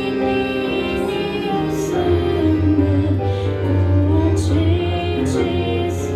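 A woman singing a Christian worship song into a microphone, holding long wavering notes over an instrumental accompaniment with steady bass and chords.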